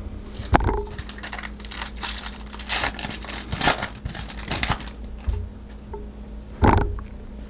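Foil trading-card pack crinkling and tearing as it is ripped open by hand, with quick crackly rustles, densest in the middle, and a single thump near the end.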